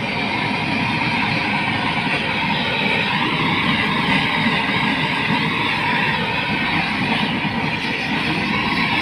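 Gas blowtorch flame running with a steady roar while it is played over a heat-shrink cable termination sleeve to shrink it onto the cable.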